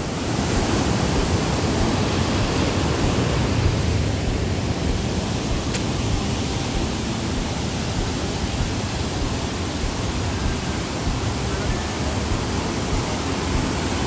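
Fast-flowing mountain stream running high, rushing and cascading over rocks below a waterfall: a steady, even rush of water.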